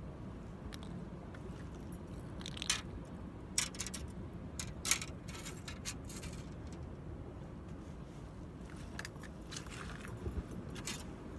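Scattered short scuffs, crunches and clicks of footsteps and gear as a person clambers over rough shore rock in sneakers, over a low steady rumble.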